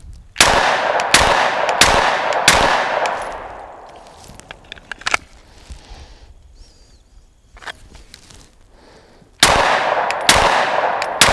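Shadow Systems MR920 9mm pistol firing: four shots about two-thirds of a second apart, each with an echo that dies away. After a pause of several seconds, three more shots come near the end.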